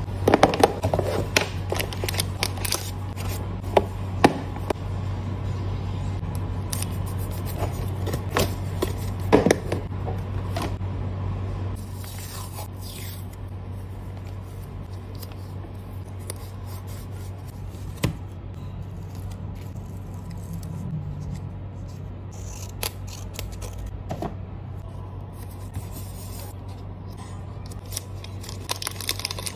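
Plastic photocard packing sounds: clear card sleeves, toploaders and an acrylic box handled, with sharp clicks, taps and scrapes of plastic. The clicks are dense for the first twelve seconds or so, then give way to softer, sparser rustling over a steady low hum.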